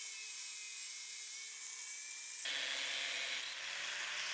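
Makita angle grinder with a Pferd cutoff wheel cutting through a steel C-clamp frame: a steady high whine with the hiss of the cut. About halfway through, the sound changes abruptly to a rougher, broader hiss.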